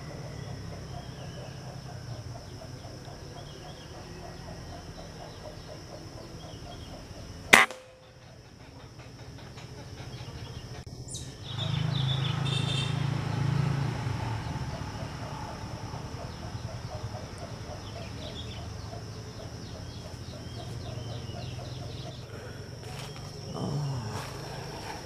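A single sharp air-rifle shot about seven and a half seconds in, the loudest thing here, over insects droning steadily. Rustling and handling noise follows later on.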